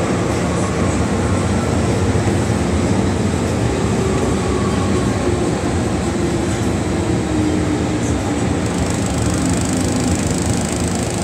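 MTR metro train heard from inside the carriage as it pulls into a station: a steady, loud rumble of wheels and running gear, with a faint whine through the middle of it.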